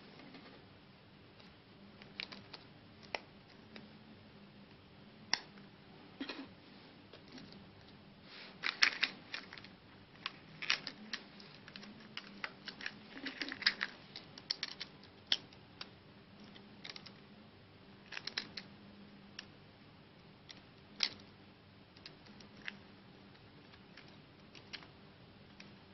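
Scattered small plastic clicks, taps and rustles of Samsung Galaxy smartphone parts being handled and pressed together on a table, busiest from about a third of the way in to just past halfway.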